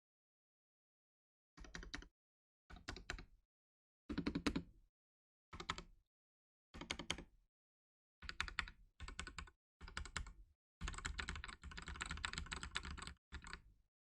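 Typing on a Ducky One 2 SF 65% mechanical keyboard with Cherry MX Silver Speed linear switches: short bursts of rapid keystrokes separated by pauses, with a longer run of fast typing near the end.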